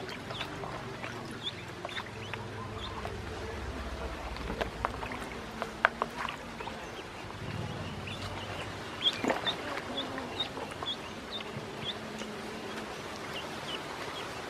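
Ducklings peeping in short, high chirps, with a steady run of peeps at about three a second in the second half, mixed with small splashes and clicks of water as they paddle about in a shallow plastic tub.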